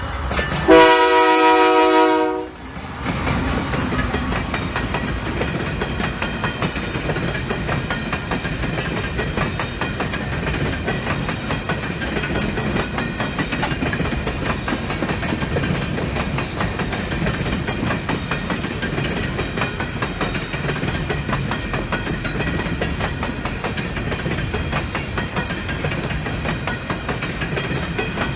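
A train horn sounds one blast of about two seconds, followed by the steady rumble and rattle of railcars rolling past.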